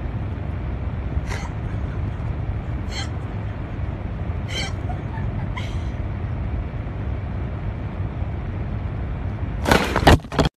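A steady low rumble, with four short hissy sounds spread over the first six seconds. About ten seconds in comes a loud burst of handling noise as the phone is jostled.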